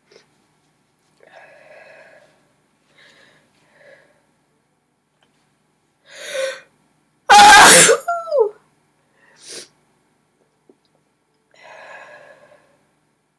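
A woman sneezes once, very loudly, after a drawn-in breath, and the sneeze ends in a short voiced sound falling in pitch. Quiet breathing sounds come before and after.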